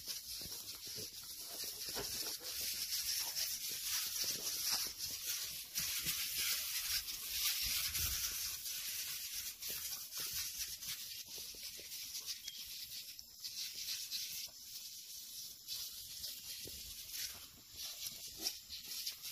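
Gloria backpack sprayer's wand nozzle hissing steadily as it sprays a liquid treatment over plants.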